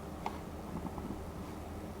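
A few faint clicks, one about a quarter of a second in and softer ticks near the middle, over a low steady hum.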